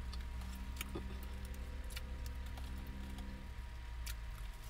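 Steady low hum of a car's engine idling and its heater running inside the cabin, with a few light clicks.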